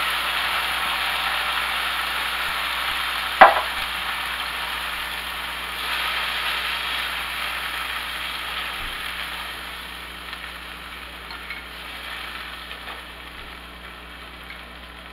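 Canned northern beans and their juice sizzling in a hot skillet of fried cabbage, stirred with a plastic spatula; the sizzle slowly dies down as the liquid cools the pan. A single sharp knock about three and a half seconds in.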